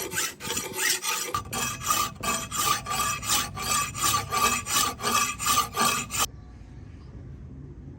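A hand file rasping back and forth on the metal workpiece in quick, even strokes, about two to three a second. A faint steady ringing tone runs under the strokes, and the filing stops abruptly about six seconds in, leaving a low hum.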